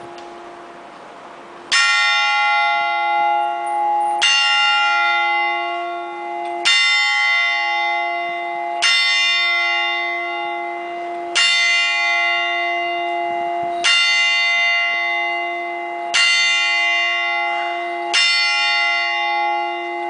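A single church bell struck by its hammer for the midday chime: eight even strikes about two and a half seconds apart, the first nearly two seconds in, each left ringing on until the next.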